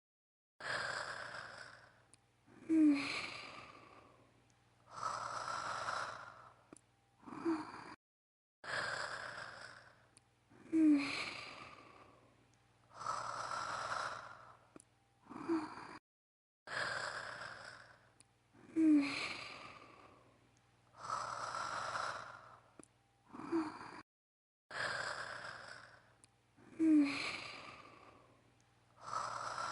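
Anime character's snoring performed by a female voice actor, looped. Each cycle has a snorting intake with a short squeaky nasal note, then a long breath out. The cycle repeats identically about every eight seconds, with a brief dead-silent gap at each loop seam.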